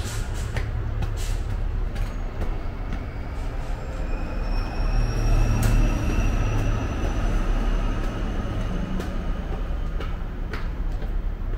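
A train running by: a steady rumble, loudest about halfway through, with a thin electric whine that rises slowly in pitch through the middle.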